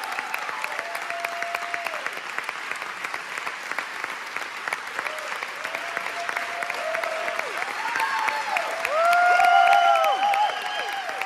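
Theatre audience applauding, with scattered voices whooping and cheering over the clapping. The applause and cheering swell about nine seconds in, then ease off.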